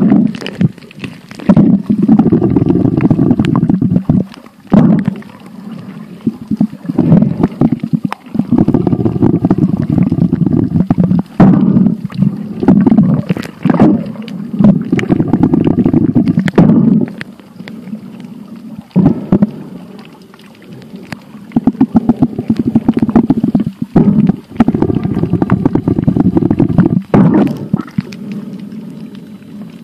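Muffled underwater rumbling and sloshing of water around a submerged phone camera while snorkelling. It comes in loud surges a second or two long every few seconds, with quieter gaps and scattered clicks.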